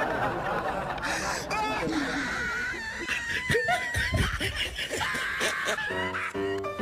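Voices with snickering and laughter. Light plucked-string music starts near the end.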